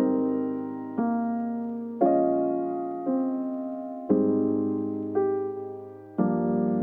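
Slow keyboard music in a piano or electric-piano sound: a new chord struck about once a second and left to fade before the next.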